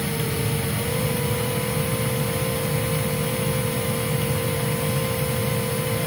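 Hoover Z upright vacuum cleaner motor running steadily, a low rumble under a steady whine whose pitch steps up slightly about a second in.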